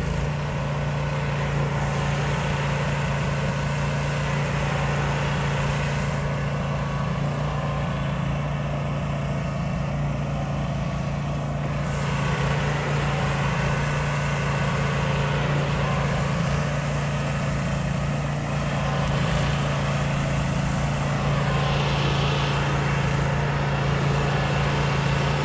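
Pressure washer engine running steadily, with the hiss of water spraying from the wand onto the dome.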